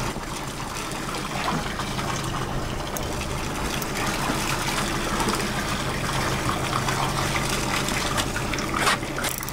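Sea water rushing and splashing against a catamaran's hull, over a steady low hum.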